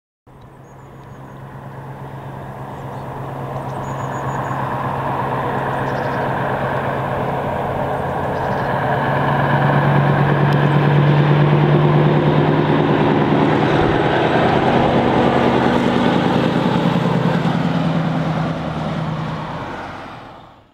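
Scania R560's straight-piped V8 diesel engine running as the truck drives past. It grows louder as it approaches, is loudest about halfway through, then fades as it pulls away.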